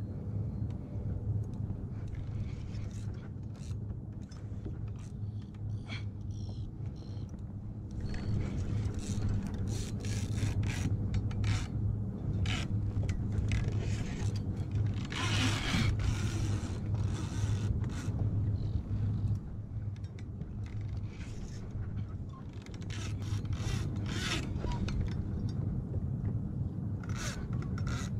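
Scraping and clicking of fishing gear being handled in a kayak, over a steady low hum, with a louder rushing scrape about fifteen seconds in.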